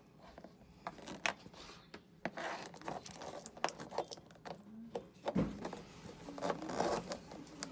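Corrugated plastic drain hose and braided steel water-supply hose rubbing and scraping as they are handled and pushed into place, with scattered small clicks and a dull thump about five seconds in.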